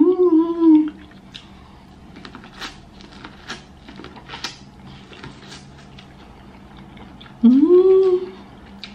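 A woman hums an appreciative 'mmm' twice, once at the start and again near the end, each a short rising-then-falling hum. Between the hums come the soft, wet clicks and crackles of her chewing buttered corn on the cob.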